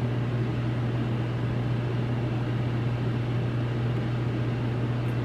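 Steady low hum with an even hiss, the constant room noise of a running machine such as a fan or ventilation unit.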